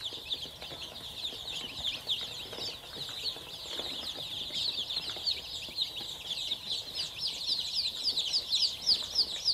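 A brood of Dong Tao chicks peeping: many short, high, falling cheeps overlapping in a constant chorus, with single louder cheeps standing out near the end.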